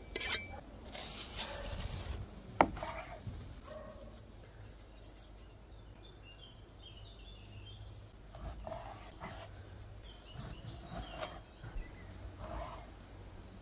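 Knife blade drawn along another blade in two scraping honing strokes, then a sharp click. From about eight seconds in, a chef's knife slices raw beef round on a wooden board in soft repeated cuts.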